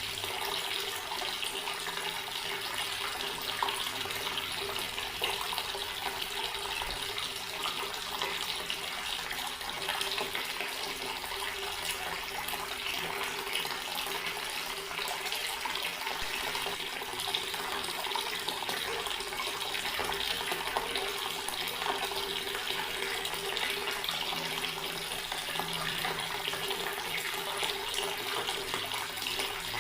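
Water running steadily from a tap, a continuous splashing stream.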